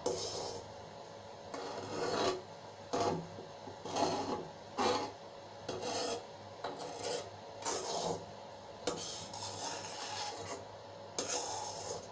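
A spatula scraping against a metal karahi as it stirs spice paste frying in oil, in repeated strokes about once a second.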